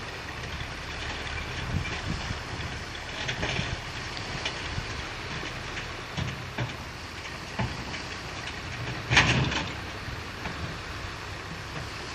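Fiat-Allis crawler bulldozer's diesel engine running steadily, with a series of metallic clanks and knocks. The loudest clank comes about nine seconds in.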